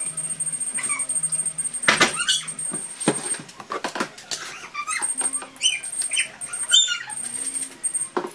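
Clinks and knocks of baby-formula preparation: a kettle, a plastic bottle and a metal formula tin and scoop handled at a kitchen sink, with several high, wavering squeaky whines in between.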